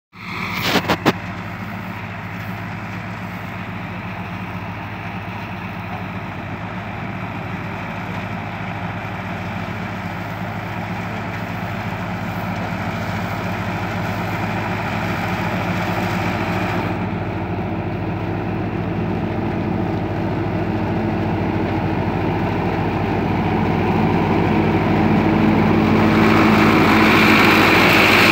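Tractor diesel engine running steadily under load as it pulls a PTO-driven Happy Seeder through straw stubble. It grows gradually louder as it nears, and near the end a rushing hiss from the seeder's rotor working the straw joins it.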